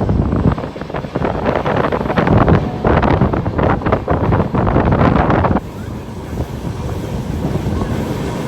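Wind buffeting the microphone in loud, uneven gusts, easing off about five and a half seconds in.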